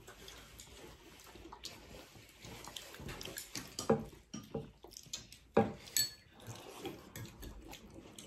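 Close-up eating sounds: slurping and chewing of chicken hotpot broth and rice noodles, with a few short utensil clicks against a bowl.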